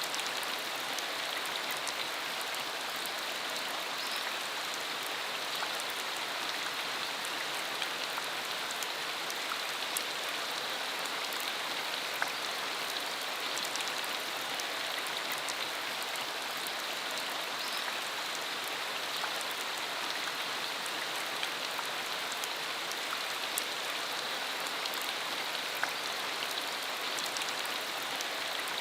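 Steady rain falling, an even hiss with scattered sharp drop impacts.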